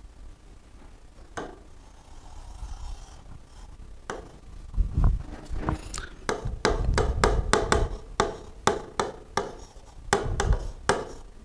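A pen tapping and scraping on the glass of an interactive display board while drawing and writing. It is a faint rubbing at first, then a quick run of sharp clicks from about four seconds in, densest in the second half.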